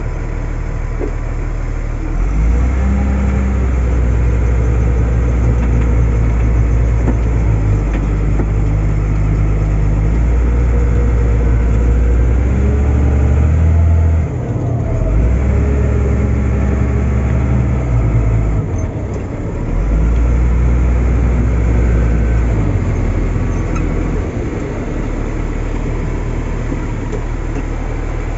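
Caterpillar 950G wheel loader's diesel engine running, rising to higher revs in three long spells, dipping briefly between them. It settles back to a steady idle near the end.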